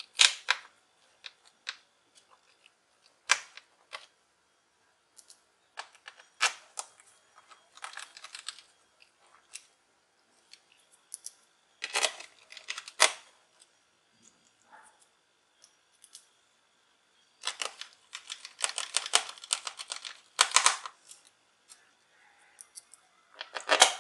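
Screws being fastened into an HP notebook's plastic bottom cover with a small screwdriver: scattered clicks and short rasping bursts with pauses between, and a denser run of them a few seconds from the end.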